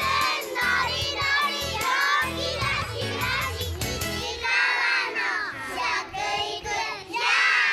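Bright title jingle with singing over a steady beat; the beat drops out about four seconds in and the singing carries on.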